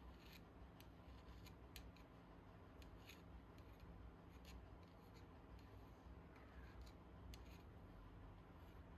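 Faint metal-on-metal ticks and scrapes of a thin metal rod worked against the washer and flange of a painted trolley-jack part, about a dozen light clicks at irregular intervals.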